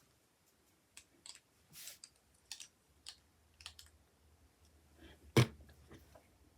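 Small plastic Lego pieces being handled and pressed together: scattered light clicks, with one louder click about five seconds in.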